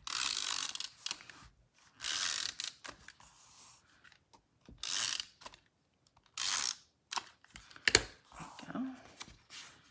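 Adhesive tape runner drawn across a cardstock panel in several separate short strokes, each under a second long, with a sharp click about eight seconds in.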